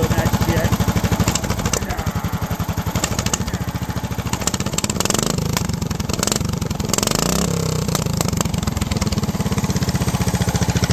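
Predator 420cc single-cylinder engine running on a 3/4-inch pipe exhaust, a loud, steady pulsing beat. About halfway through its pitch wavers up and down, then settles back to an even run.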